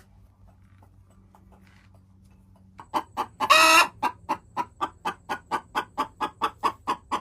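A chicken clucking in a fast, even run of about four to five clucks a second, starting a little under halfway through, with one loud squawk near the start of the run. Before it, only faint clicks.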